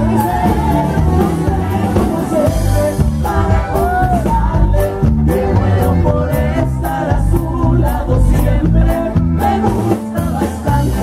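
A live Mexican conjunto band playing at full volume, with a steady bass and drum beat under melody lines and singing.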